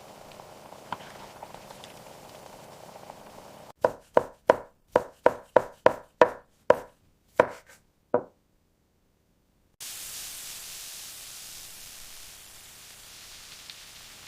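A series of about a dozen sharp knocks over some four seconds, coming fast at first and then spacing out, followed by a short dead silence and a faint steady hiss.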